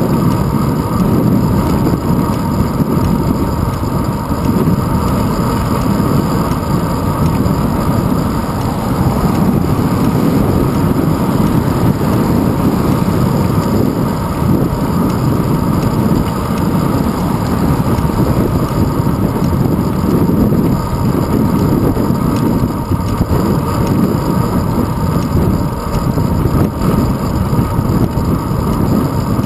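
Steady, deep rushing and rumble of wind and road vibration on a handlebar-mounted GoPro Hero 2 on a moving bicycle.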